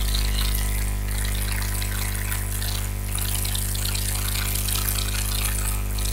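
A steady rushing hiss, like running water, over a low electrical hum.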